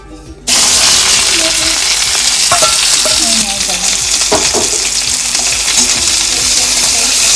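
Onions frying in hot oil in a pan: a loud, steady sizzle that starts abruptly about half a second in, with a couple of brief stirring scrapes.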